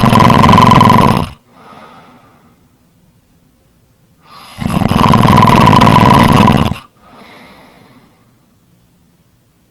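Loud, rattling snoring: two long snores about four seconds apart, each followed by a faint breath out.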